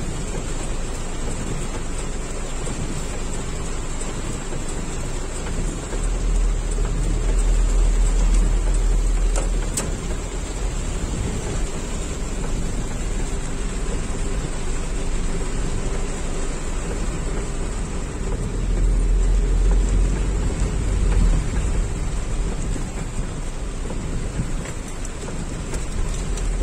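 Heavy rain falling on a car's roof and windscreen, heard from inside the car as a steady hiss. A deep low rumble swells twice, about six seconds in and again around eighteen seconds.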